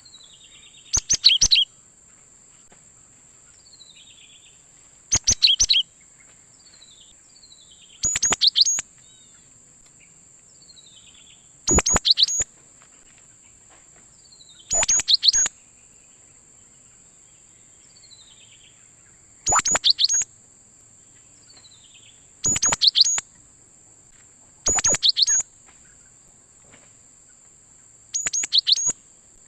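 Cinereous tit (gelatik batu) singing: nine short, loud bursts of rapid high notes, about one every three seconds, with fainter falling chirps between them. A steady high-pitched whine runs underneath.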